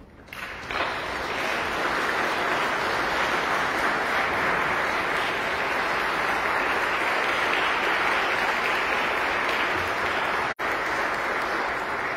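Audience applauding, starting within the first second and holding steady, with a split-second break near the end.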